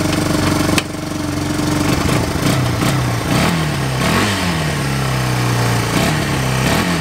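Yamaha Bear Tracker ATV's single-cylinder four-stroke engine idling, then revved in several quick throttle blips from about two seconds in, each falling back to idle. It runs quiet on its stock exhaust, with no aftermarket pipe.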